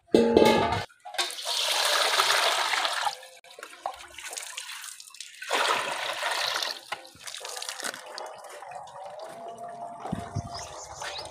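Water poured from a plastic mug into a large stainless steel basin, splashing in two pours. It opens with a loud metallic knock as the steel basin is set down on the concrete.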